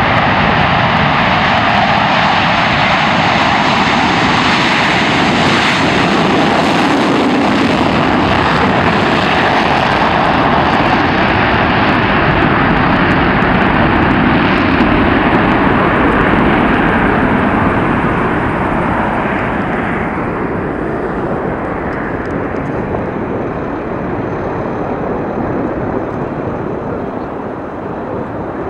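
Blue Angels F/A-18 Hornet jets taking off in formation: loud, steady jet engine noise from their twin turbofans, easing off after about eighteen seconds as they move away.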